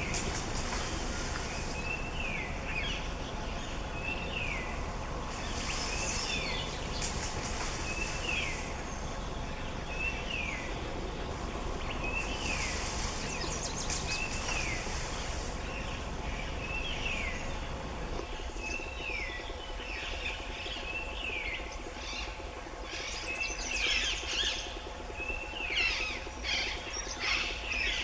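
A bird calling with a short, downward-sliding chirp repeated every second or two, with busier, more varied calls crowding in near the end. Three stretches of high hissing buzz come and go in the first half.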